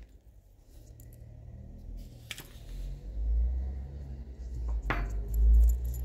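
Small metal tools and a watch movement being handled in a movement holder: two light metallic clicks, about two seconds in and again near five seconds, over dull low bumps of handling.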